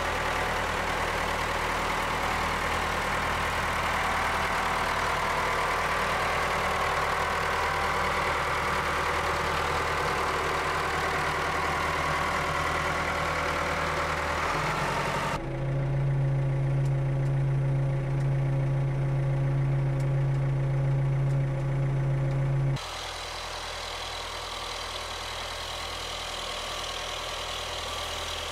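Ford farm tractor engine running steadily as the front loader moves a farm fuel tank. About halfway through the sound switches to a louder, deeper steady drone, and about three-quarters of the way through it drops suddenly to a quieter engine sound.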